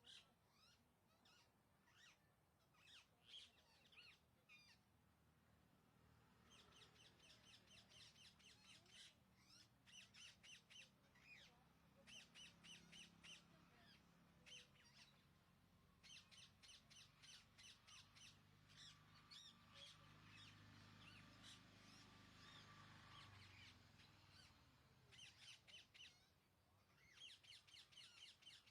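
Rose-ringed parakeets (Indian ringnecks) calling in runs of rapid, harsh shrieks, several a second, in bursts lasting a few seconds. A faint low hum sits underneath through the middle.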